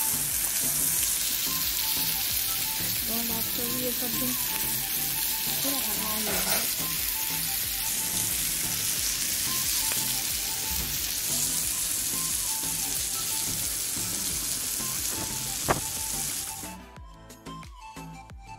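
Chicken in masala gravy sizzling on a hot iron sizzler plate: a steady, dense hiss with one sharp click, which cuts off abruptly near the end.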